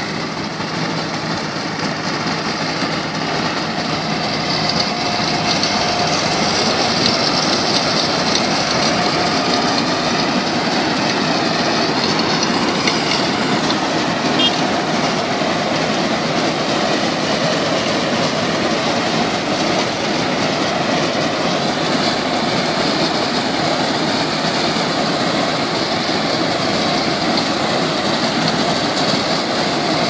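Tracked combine harvester working through ripe paddy. Its turbocharged Kirloskar 4R1040 diesel engine runs steadily under load, mixed with a dense mechanical rattle from the machine at work. The sound grows a little louder over the first several seconds as the machine comes close, then holds steady.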